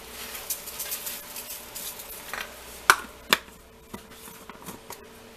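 Seasoned salt shaken from its shaker bottle onto raw chicken wings: a run of quick light taps and pattering. Near the middle come two sharp knocks about half a second apart, the loudest sounds, over a faint steady hum.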